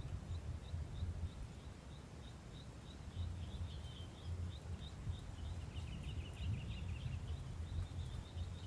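Birds calling: one repeats a short high note about three times a second, and a second joins with a quick twittering run from about three seconds in to about seven seconds. Under them is a steady low rumble of background noise.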